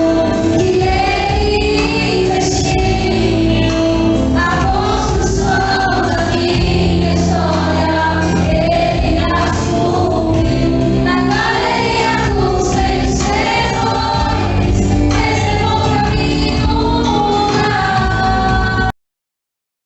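Christian gospel song with singing over instrumental backing, cutting off suddenly about a second before the end.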